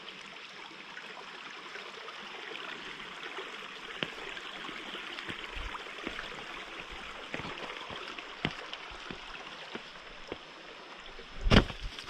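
A brook rushing steadily over rocks, with scattered footsteps on a rocky trail and a loud thump near the end.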